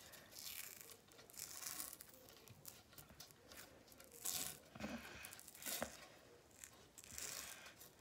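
White cloth hockey tape peeling off the roll in a handful of short, faint rasps as it is wound around the knob of a mini hockey stick.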